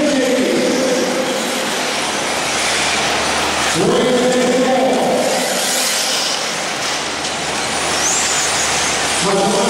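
Several R/C racing truggies running flat out with a buzzing engine note. The pitch climbs sharply twice, about four seconds in and again near the end, as the cars accelerate out of the turns.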